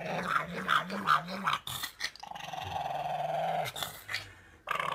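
Pug growling: a wavering growl through the first second and a half, then a longer, steadier growl about two seconds in.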